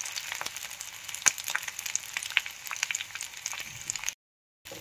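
Slit green chillies and garlic frying in hot sesame oil in a clay pot: a steady sizzle with scattered sharp pops as the chillies soften in the oil. It cuts out briefly near the end.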